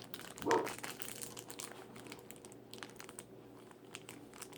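Plastic doll packaging crinkling and rustling as it is handled, with scattered small clicks and a louder burst about half a second in.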